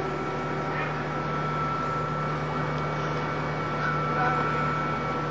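Boat's engine running steadily under way: a constant low drone with a steady higher whine over wash noise.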